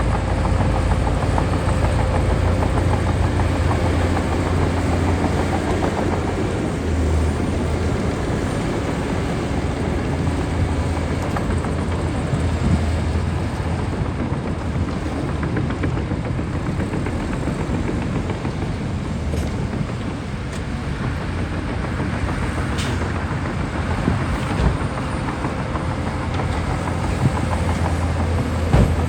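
Shantui DH17C2 bulldozer's diesel engine running steadily, with a constant low hum and rattle, and a few sharp clanks in the second half.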